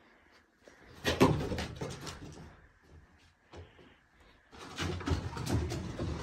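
Dogs' paws and claws scrambling on wooden porch deck boards as a German Shepherd and a Bernedoodle puppy run and play. Rapid tapping comes in two bursts, about a second in and again about four and a half seconds in.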